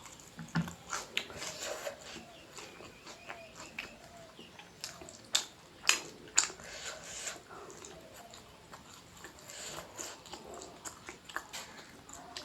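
Close-miked eating: chewing and wet mouth sounds of someone eating food, with scattered small clicks and three sharp, louder clicks about five to six and a half seconds in.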